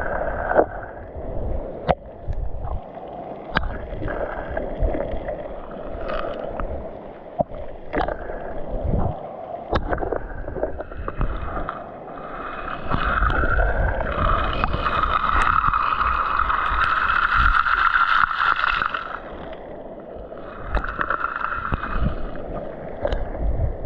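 Sea water sloshing and gurgling close by, with frequent knocks and splashes and wind buffeting. About halfway through, a steady whining drone grows louder, then fades, and comes back briefly near the end.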